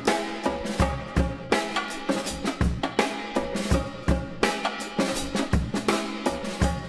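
Background music with a steady drum-kit beat of kick, snare and cymbals over sustained pitched tones.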